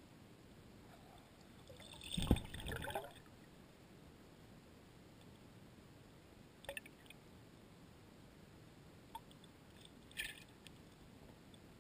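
Faint underwater river sound heard through a GoPro's waterproof housing: a steady muffled hiss of moving water. About two seconds in there is a cluster of knocks and clatter, and a couple of short clicks come later.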